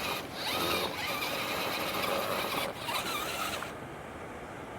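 RC rock crawler's electric motor and gears whining under throttle, rising and falling in pitch in short bursts, stopping about three-quarters of the way through.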